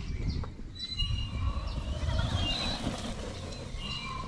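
Radio-controlled HSP Wolverine Pro monster truck running across grass, heard over a steady low rumble, with birds chirping now and then.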